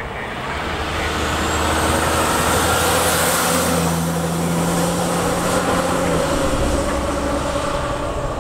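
A fire crew bus, a medium-duty diesel truck, drives past: a steady engine drone with tyre and road noise. It grows louder as it approaches, is loudest as it passes about three seconds in, and eases off as it pulls away.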